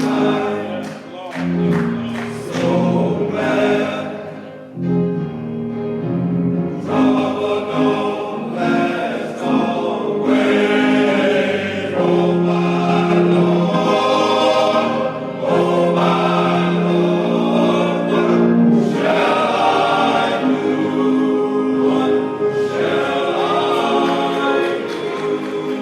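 Church choir singing a gospel song, with long held chords.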